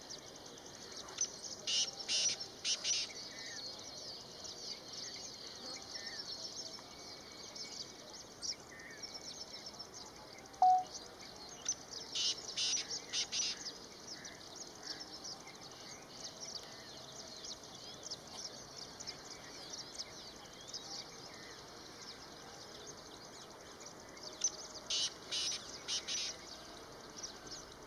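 Male black francolin calling: three bouts of harsh, rhythmic grating notes, about two seconds in, about twelve seconds in and near the end, over a steady high hiss of background insects or birds. A single short clear note sounds a little before halfway.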